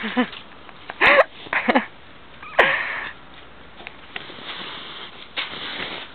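Siberian huskies playing: a string of short, sharp yips, about five in the first three seconds, each rising and falling in pitch, followed by quieter scuffling.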